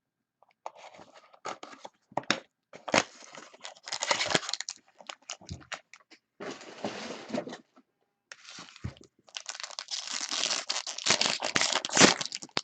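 Wrapping on a box of 2014-15 SP Game Used hockey cards being torn open and crumpled: ripping and crinkling in irregular bursts, busiest and loudest in the last few seconds.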